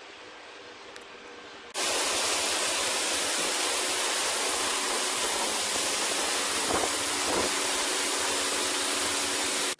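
Corn-drying machinery running: a low steady hum, then from about two seconds in a much louder, even rush of air, typical of the dryer's fans, which holds steady and cuts off sharply at the end.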